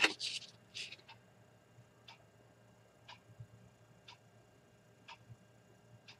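A short rustle of the paper nail-sticker sheet being handled and turned in the first second, then a clock ticking faintly about once a second.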